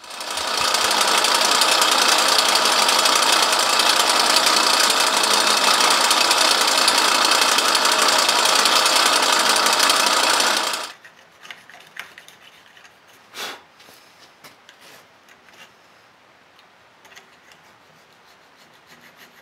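Power drill boring into a bog oak handle block, running loud and steady for about ten seconds, then stopping suddenly. Afterwards come faint scrapes and taps, with one louder knock.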